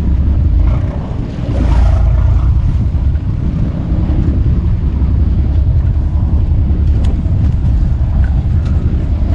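Steady low rumble of wind buffeting the microphone and a boat riding a choppy sea, with a few faint ticks in the second half.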